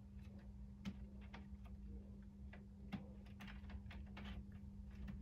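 Faint, irregular light clicks and ticks of chicken wire being bent and hooked together by hand, the cut ends of the mesh catching and snapping against each other.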